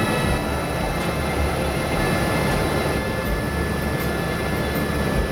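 Helicopter in flight heard from inside the cabin: a steady drone of engine and rotor with a thin, constant high whine over it.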